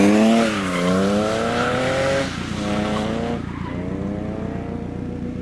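BMW E36 coupe drifting on wet asphalt, its engine revving up and down several times as it slides past, loudest in the first second, over a steady hiss of tyres through water.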